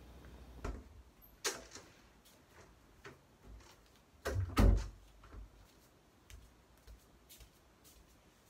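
Scattered clicks and knocks of things being handled around a room, with one louder thump about four and a half seconds in and a few lighter ticks after it.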